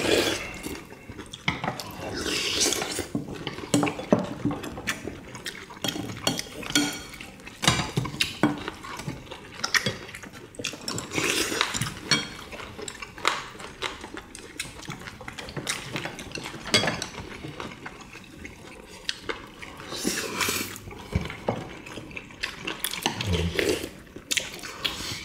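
Eating sounds: spoons and chopsticks clinking irregularly against bowls and a pot, with wet slurping of kimchi stew between the clinks.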